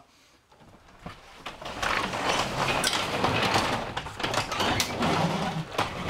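Sectional garage door being raised by hand, its rollers rumbling and clattering along the tracks, starting about a second in. This is a hand test of the door after a panel repair, run to check that it does not bind.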